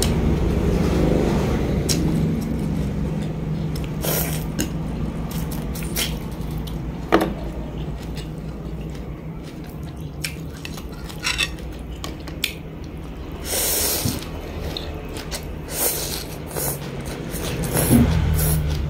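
Eating a bowl of noodle soup with chopsticks: scattered clicks of chopsticks against a ceramic bowl, and noodles slurped in short bursts, over a steady low hum.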